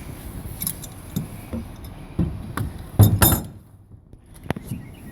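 Metal ratchet-strap hardware clinking and knocking as the released strap is handled and pulled through, with a loud cluster of rattling clatters about three seconds in.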